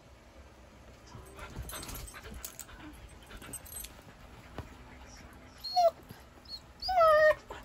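Dogs scuffling in play on a bed, with rustling of the bedding, then a dog whining: one short falling whine about six seconds in and a longer, wavering whine, the loudest sound, near the end.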